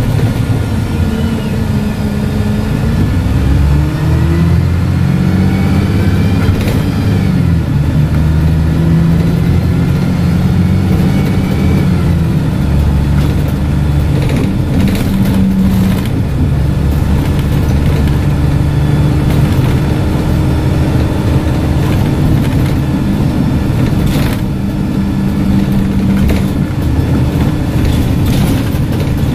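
Dennis Dart SLF bus's diesel engine and Voith automatic gearbox heard from inside the saloon, pulling away with a whine that rises in pitch for several seconds. The pitch drops at a gear change about seven seconds in, and the bus then settles into a steadier drone.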